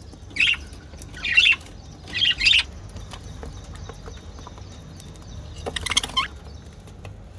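Budgerigar chirping: a few short, high chirps in the first three seconds, then a pause and one more chirp about six seconds in.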